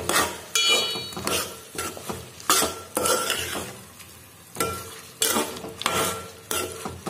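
Metal spoon scraping and knocking against a steel pot while stirring chicken pieces frying in hot oil, with a sizzle underneath. The strokes are irregular, a dozen or more, with a short metallic ring about a second in and a brief lull around the middle.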